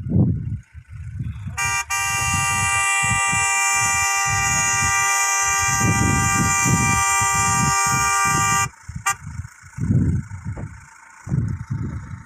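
A vehicle horn held in one long, steady blast of about seven seconds, starting about a second and a half in and cutting off suddenly. Irregular low thumping noise on the microphone runs under it.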